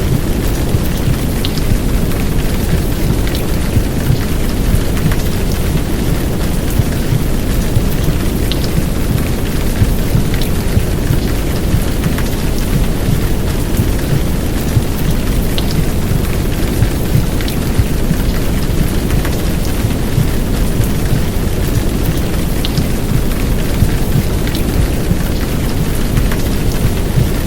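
Heavy downpour rain over a deep, muffled womb-sound noise, steady throughout, with a few sharp drip ticks now and then.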